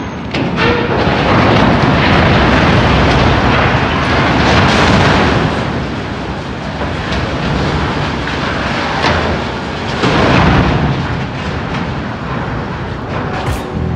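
Ship-to-shore container crane's steel structure collapsing: a long, loud crash and rumble with sharp impacts over several seconds as it falls. A second loud crash comes about ten seconds in as the tall boom comes down.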